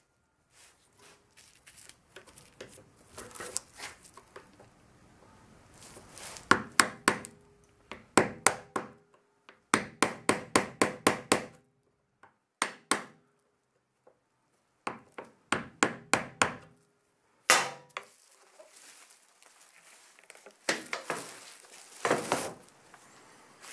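A hammer tapping on a screwdriver driven between the two halves of a VW bus safari window frame, to wedge them apart. The taps come in quick runs of several a second, with short pauses between the runs.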